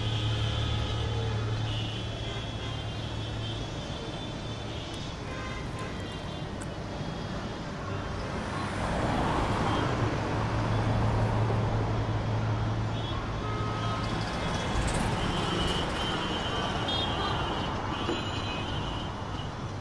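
Street traffic noise with a steady low engine drone; a vehicle passes, louder, around nine to thirteen seconds in.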